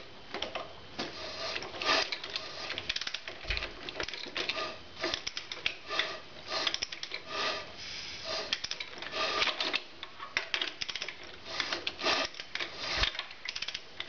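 Socket ratchet clicking in repeated strokes as an Evolution Sportster engine is turned over by hand with a long wrench, with a couple of dull knocks. The engine turns against compression: it is not seized.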